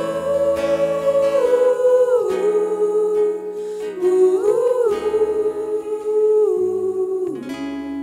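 A group of singers singing a slow melody together in long held notes, accompanied by guitar and keyboard.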